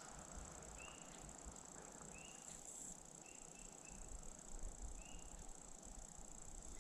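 Faint, short high-pitched calls from an unidentified wild animal, repeated about six times at irregular gaps of a second or so, each note rising slightly in pitch.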